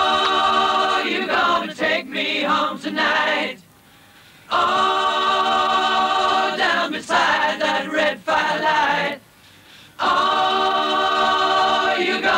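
Background music: a choir singing long held chords in three phrases, broken by short pauses about four seconds and nine seconds in.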